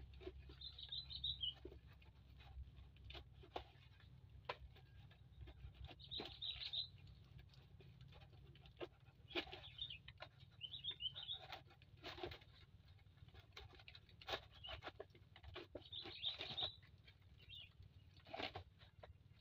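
Quiet handling sounds: soft crackles and taps of a plastic bottle being handled as small leaves are pushed into it by hand. Short bird chirps come at intervals in the background.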